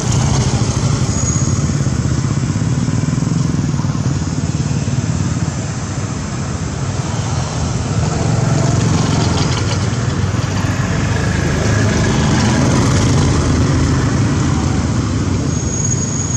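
Steady low rumble of a motor vehicle engine running, with a hiss of background noise over it.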